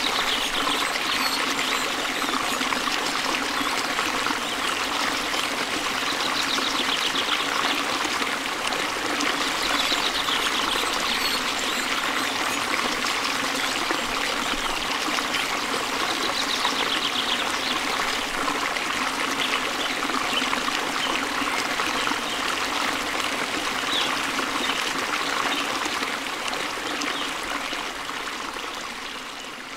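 Steady rushing of flowing water, like a stream, fading down near the end.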